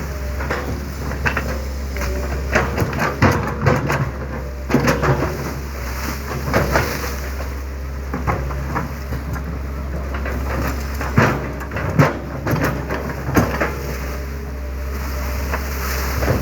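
Excavator engine running with a steady low hum, under irregular spattering water and knocks as the bucket is washed.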